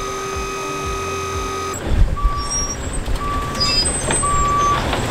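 A vehicle's reversing alarm beeping three times, about one beep a second, over a low engine rumble. Before it, a steady mechanical whine stops abruptly.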